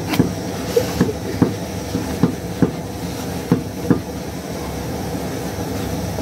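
Wooden cooking stick knocking and scraping against a metal pot while stirring stiff ugali (maize-flour porridge), about two or three knocks a second, stopping about four seconds in. A steady hiss runs underneath.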